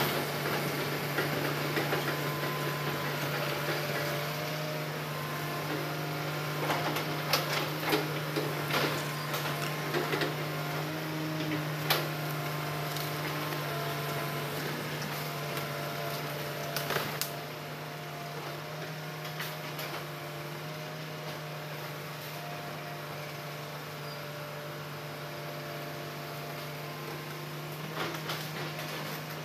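Hitachi tracked excavator's diesel engine running steadily as the machine travels away, with a constant low hum and scattered sharp clanks. The sound drops a little in level about two-thirds of the way through.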